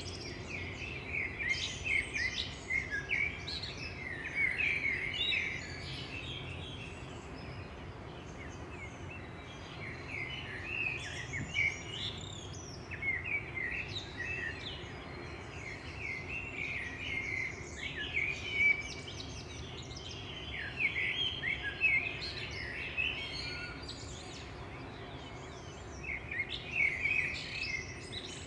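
Several songbirds chirping and singing in short, overlapping phrases that come in clusters with brief lulls, over a steady faint background noise of open outdoor ambience.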